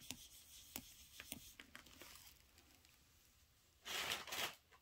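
A few faint clicks, then a brief rustle about four seconds in: handling noise.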